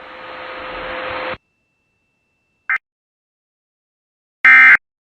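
Radio static hiss with a faint steady tone, swelling for about a second and a half and then cutting off. After a short silence and a tiny click, near the end comes a loud, short screech: the first of the Emergency Alert System end-of-message data bursts, which marks the end of the alert.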